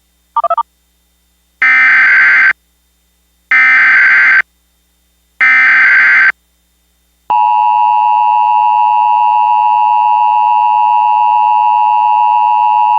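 Emergency Alert System tones. A short burst of DTMF touch-tones, then three bursts of SAME digital header data, each just under a second long and about a second apart. Then, a little over seven seconds in, the steady two-tone EAS attention signal (853 and 960 Hz) comes in and holds.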